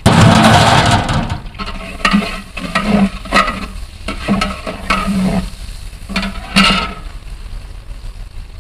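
Food frying in hot oil in a cooking pot, with a loud sizzling rush in the first second or so, then a ladle stirring and scraping the pot in repeated strokes about twice a second over the continuing sizzle.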